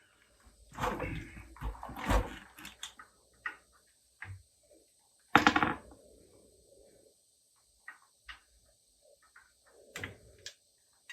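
Scattered clanks, knocks and rattles of hand tools and metal parts being handled during work on a truck's rear brakes and suspension. A cluster comes in the first couple of seconds, the loudest single clank about five and a half seconds in, and a few lighter knocks near the end.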